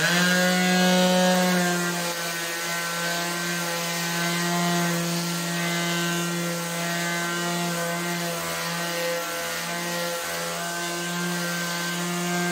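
Black+Decker mouse detail sander switched on and running against a wall, sanding down filled patches, a steady motor hum that wavers slightly in pitch. It starts suddenly as it is switched on.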